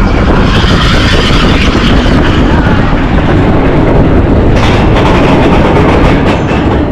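Seven Dwarfs Mine Train roller coaster running along its track: a loud, steady rumble and rush of noise.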